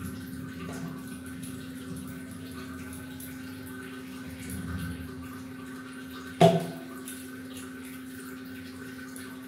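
A soft dough ball dropped into a stainless-steel bowl: one sharp thud with a short ring about six and a half seconds in, over a steady low hum.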